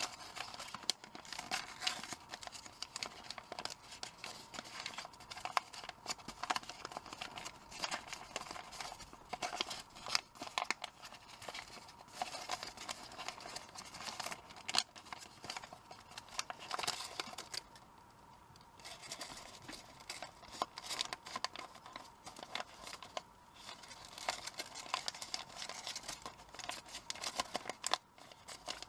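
Origami paper rustling and crinkling as hands fold and press the creases of a layered paper model, with many small crackles and ticks. It goes briefly quieter about eighteen seconds in.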